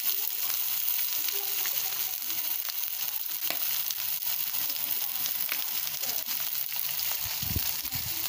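Mackerel frying without oil in a stainless steel pan, sizzling steadily with small crackling pops.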